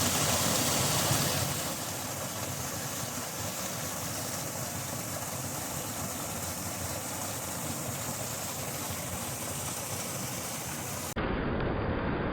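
Steady rushing of water from a waterfall meeting the sea, a little louder for the first second and a half. Near the end it cuts suddenly to a duller recording with more low rumble.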